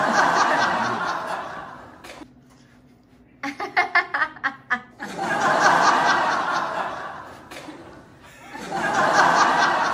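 A person laughing hard: long breathy swells of laughter, with a run of quick ha-ha bursts about halfway through.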